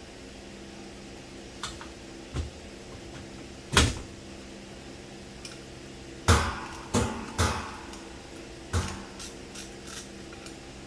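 Sharp clicks and knocks at irregular spacing from hand tools, a 1/4 inch socket and ratchet, working on the exhaust fan's ground screw, over a steady low hum. The loudest knocks come a little before four seconds in and in a cluster of three from about six to seven and a half seconds in.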